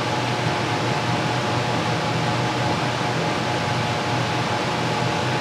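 CWI Dust FX 1400 CFM shop air cleaner running at its top fan speed: a steady rush of air over a low hum.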